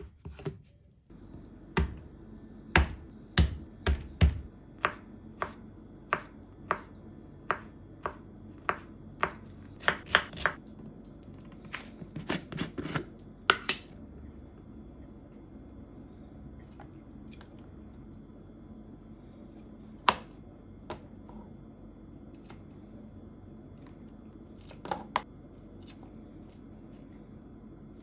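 A knife chopping on a cutting board in even, separate strokes, a little under two a second. The chopping stops about halfway through, with a couple of single knocks later.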